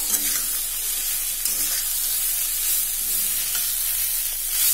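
A metal spatula stirs and scrapes ground urad dal stuffing around a metal kadhai, over a steady sizzling hiss as the dal roasts on the gas.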